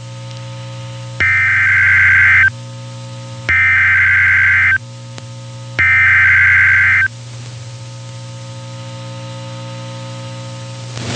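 Emergency Alert System SAME header: three identical screeching data bursts, each about a second long, one after another over a steady low hum. It is the coded start of an alert, here a severe thunderstorm warning.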